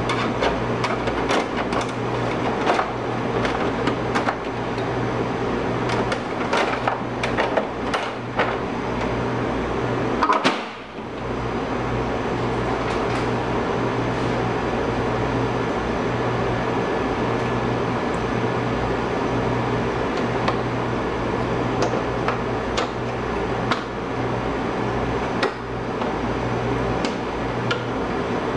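Plastic clicks and knocks of a filter and the louvre flap being fitted back onto a split air conditioner's indoor unit, most of them in the first third, over a steady low hum.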